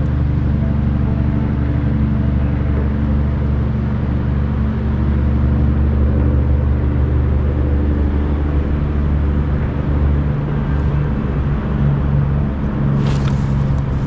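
A steady low engine drone, its pitch shifting about ten seconds in, with a short burst of clattering near the end.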